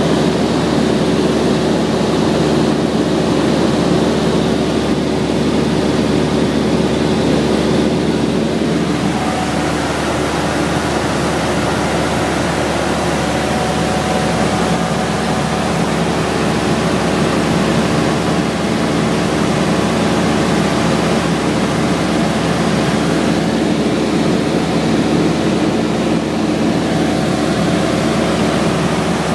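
Cessna 172's piston engine and propeller running steadily in flight, heard from inside the cabin over a steady rush of air.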